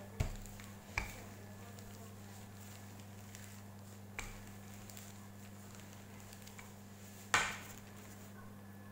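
Wooden rolling pin handled over dough on a plastic-covered board, giving a few sharp knocks. The loudest knock comes near the end as it is set down on a plastic tray. A steady low hum runs underneath.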